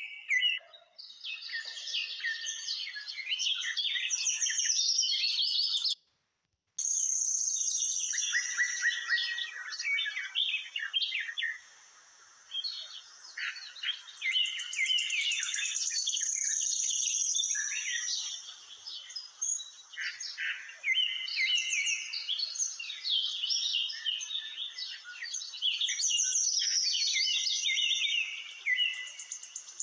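Many birds singing at once: a dense chatter of rapid, high-pitched chirps. The sound cuts out completely for under a second about six seconds in.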